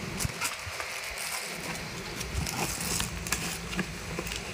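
Plastic wrap and a cardboard box being handled: crinkling and rustling with scattered light clicks and taps.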